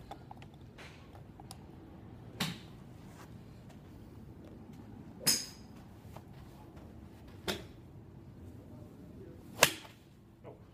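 Golf clubs striking balls: four sharp cracks about two seconds apart. The last and loudest, near the end, is a full swing hitting a ball off the mat. The one in the middle rings with a high metallic ping.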